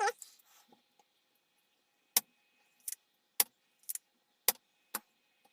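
A series of six sharp clicks about half a second apart, made by small tools being handled at an electronics repair bench, over a faint steady hum.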